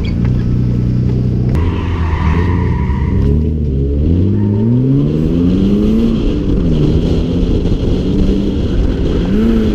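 BMW E36's engine running loud, holding a steady note at first, then revving up in long climbing rises with short dips as the car accelerates and drifts. A brief rush of higher-pitched noise sits over the engine about two seconds in.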